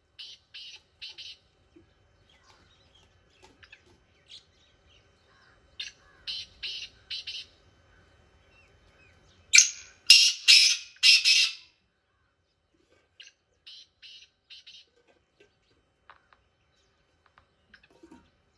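Black francolin calling: several phrases of four or five short, harsh, grating notes, with the loudest phrase about halfway through.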